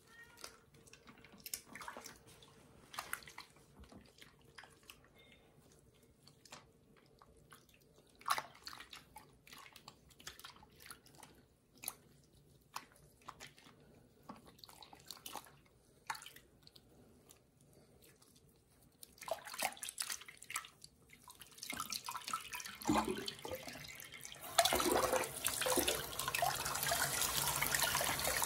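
Small splashes and drips as a kitten is washed by hand in shallow bath water, with louder sloshing building up. About 24 seconds in, the tap comes on and water runs steadily from it.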